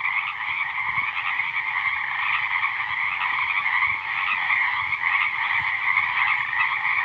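Dense chorus of many frogs calling at once, an unbroken chattering trill that holds steady throughout.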